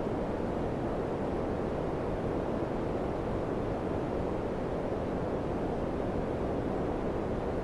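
Daikin FCQ100KAVE4 ceiling cassette air conditioner running, its fan blowing a steady, even rush of air with no change in level.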